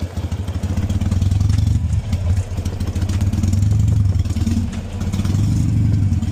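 Harley-Davidson Sportster 883's air-cooled V-twin running at idle, its revs rising and falling a few times. The bike is running again after standing for two years.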